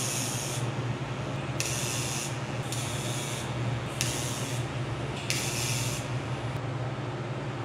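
TIG torch fusion tack-welding mild-steel pie-cut exhaust pipe sections with no filler rod. There are five short hissing arc bursts, roughly a second apart, over a steady low hum from the welder.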